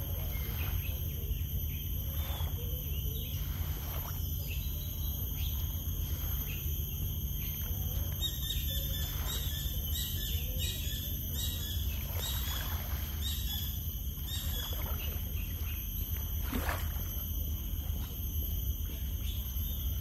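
Seaside ambience by a calm sea: a steady low rumble under soft, irregular washes of small wavelets on the sand, with steady high-pitched tones above. One louder swish comes late on.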